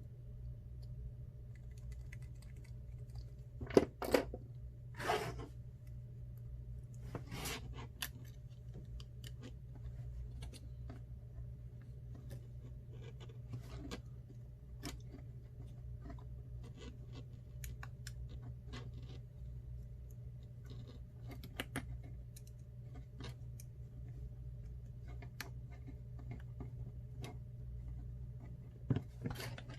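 Small clicks, taps and scrapes of tools and parts being handled while an iPhone 6 Plus is worked on, with a few louder taps about four, five and seven seconds in and again near the end, over a steady low hum.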